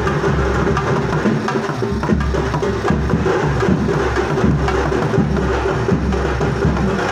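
Loud festival music with drumming, busy drum strikes and sharp clacks over a steady held tone.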